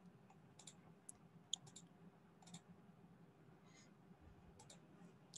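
Near silence broken by faint, sharp computer clicks. Several come in the first two and a half seconds and a close pair comes near the end.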